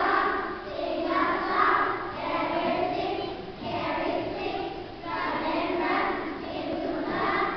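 A choir of young children singing together, in phrases of about a second each.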